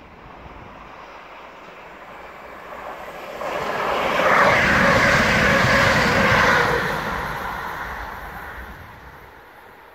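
ScotRail Class 170 Turbostar diesel multiple unit passing close at speed, its underfloor diesel engines and wheels on the rails. The sound builds from about three seconds in, is loudest for a few seconds as the train goes by, then fades away near the end.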